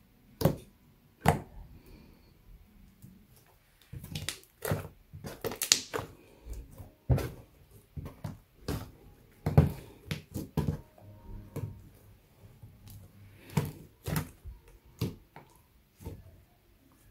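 Homemade fluffy slime, made of school glue, shaving cream and activator, being squeezed and pressed by hand, giving irregular sharp squelching pops about once or twice a second.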